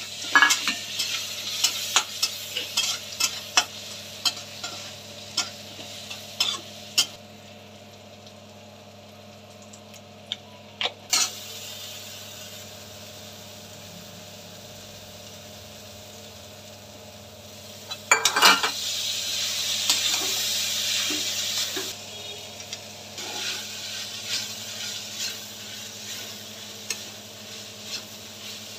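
A steel spatula scraping and clicking against a steel kadhai while onions, chillies, curry leaves and turmeric sizzle in hot oil. Midway, as washed poha is tipped in, the sizzle swells loudly for a few seconds, then the stirring clicks resume.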